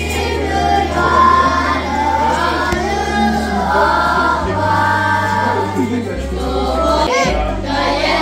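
Music: a song with singing over long held bass notes that change pitch a few times.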